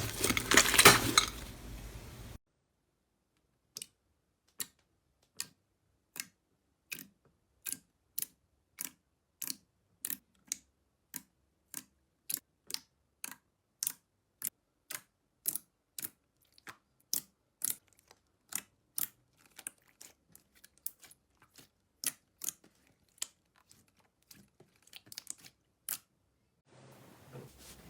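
Crunchy slime being squeezed, with dense crinkling and crackling for about two seconds. Then a long run of single sharp clicks or taps, one every half second or so, with silence between them.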